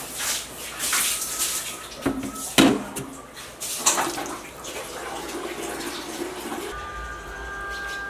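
Dishes washed by hand in a stainless-steel sink: a sponge scrubbing a wet plastic plate with water splashing, and a couple of sharp knocks a little over two seconds in as the plate meets the sink. A few steady tones come in near the end.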